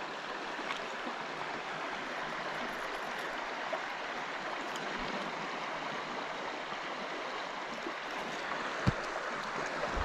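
Shallow stream running over a stone and gravel bed: a steady rush of moving water. There is one brief knock near the end.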